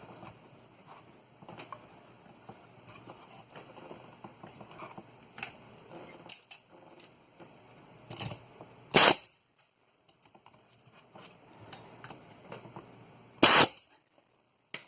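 A finish nailer firing twice, about four and a half seconds apart, each shot a loud sharp crack. There are faint handling clicks and taps in between.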